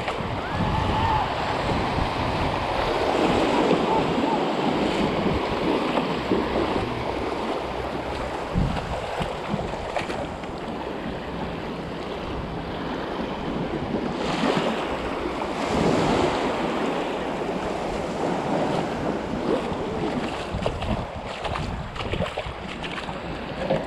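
Small waves washing in over flat sand at the water's edge, with swells of surf a few seconds in and again about halfway through. Wind rumbles on the microphone throughout.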